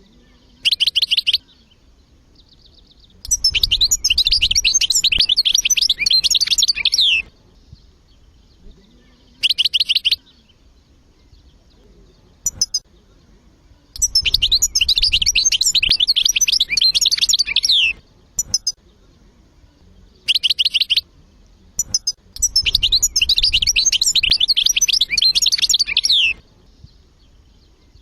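European goldfinch singing: three long phrases of rapid, high twittering notes about four seconds each, with shorter bursts of song in between.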